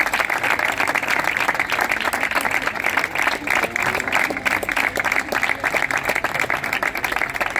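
A crowd of children and adults applauding, many hands clapping steadily.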